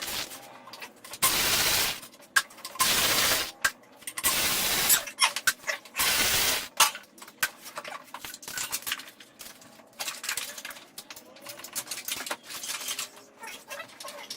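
Four short bursts of hissing, whirring air-tool noise, each under a second long, typical of a pneumatic ratchet spinning off bolts. A run of light metallic clicks and taps from hand tools and loosened parts follows.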